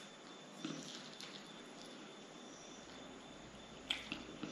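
Close-miked mouth sounds of a man chewing a bite of a breaded, fried cutlet: soft wet smacks and a few sharp clicks, with the sharpest near the end.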